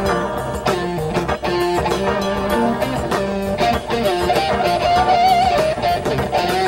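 Rock music: electric guitar playing over bass and a drum kit, with a bent, wavering lead guitar note held near the middle.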